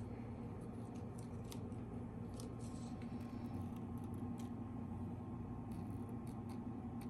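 Steady low hum with faint scattered clicks and ticks.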